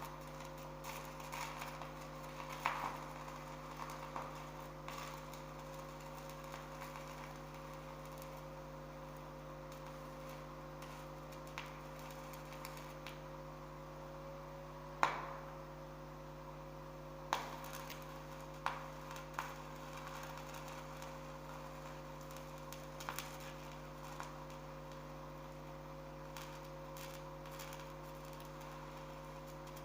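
Electric arc welding machine humming steadily with a constant whine, with scattered sharp clicks and taps, the loudest about halfway through.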